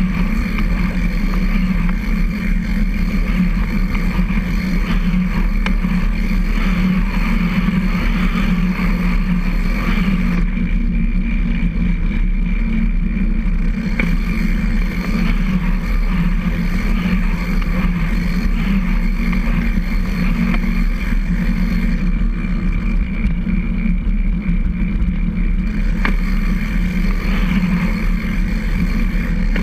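Recumbent trike rolling along a concrete trail: a steady low hum of tyres and drivetrain shaking through the frame-mounted camera, with an occasional faint click.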